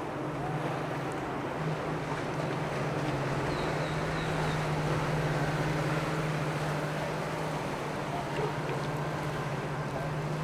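Motorboat engine running with a steady hum, over a wash of water and wind noise.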